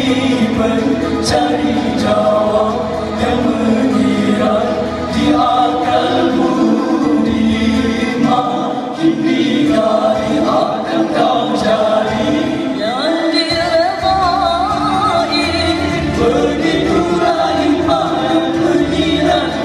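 All-male nasyid group singing a cappella in close harmony through microphones and a PA, several voices with a low bass part underneath.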